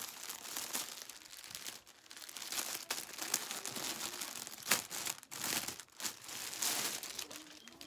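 Clothing packaging crinkling and rustling as a shirt is unwrapped by hand, with a few sharper crackles, the loudest about four and a half seconds in.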